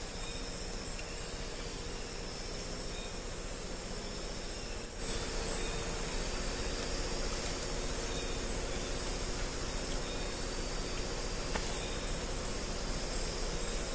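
Steady high-pitched hiss of rainforest night insects, with faint short chirps repeating through it; the sound gets louder about five seconds in.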